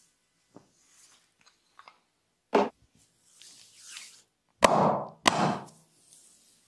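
A barber's hands working a body during a massage: a sharp crack, a soft brushing rub, then two loud sharp hits about half a second apart, each trailing off briefly.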